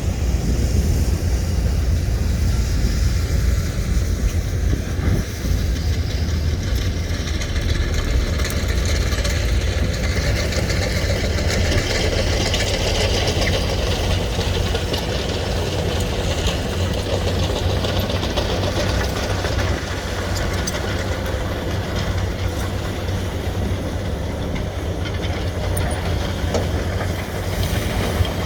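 SANY excavator's diesel engine running steadily under working load: a deep, continuous drone with a rushing hiss over it that grows stronger around the middle and eases slightly toward the end.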